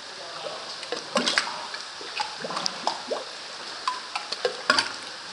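Lake water lapping into small sea-cave hollows at the base of a sandstone cliff: irregular plops, drips and gulps, the strongest about a second in and again near the end.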